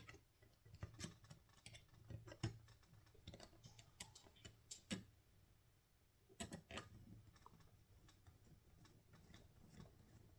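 Faint, irregular clicks and ticks of small hand tools: a driver turning a servo mounting screw into a model helicopter's frame.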